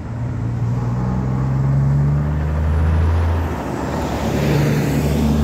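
Heavy diesel engines running with a steady low drone that shifts pitch about halfway through. The hiss of a road vehicle passing swells near the end.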